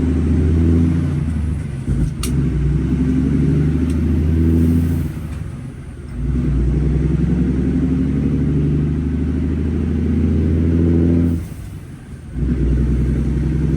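Cummins diesel engine of an International 9900 truck running under load. The engine sound drops away briefly about halfway through and again near the end, as at gear shifts. There is a single sharp click about two seconds in.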